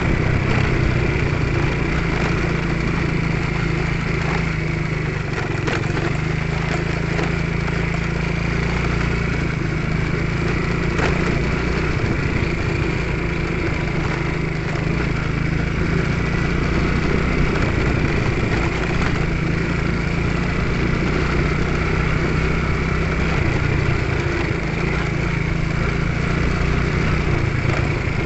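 Small motorcycle engine running steadily under way on a rough road, a continuous drone with a few faint knocks.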